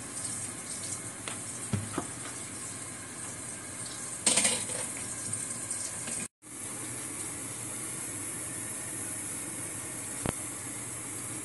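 Steady watery hiss with a few light clinks, one louder burst of noise about four seconds in, and a brief abrupt dropout a little past halfway.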